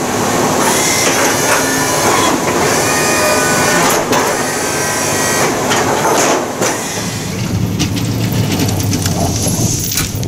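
DB Electrical replacement pump motor on a Fisher Minute Mount 1 snow plow, running on test as it drives the hydraulic pump that works the blade. The electric motor and pump run loud and steady, with a few clunks of the moving blade between about four and seven seconds in.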